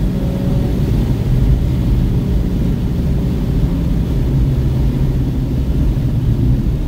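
Car engine running at track speed with heavy tyre and road rumble, heard from inside the cabin; a steady, loud drone.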